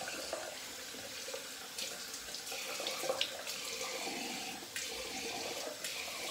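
Tap water running into a bathroom sink, with uneven splashing as the face is rinsed after a wet shave.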